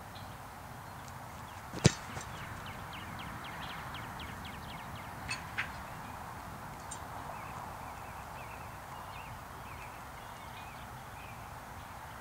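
An American football kicked off a kicking holder for a field goal: one sharp thud of the foot striking the ball about two seconds in. Two fainter knocks follow a few seconds later, over steady background noise.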